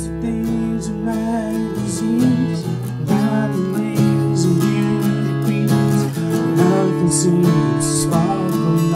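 Music: acoustic guitar strumming chords.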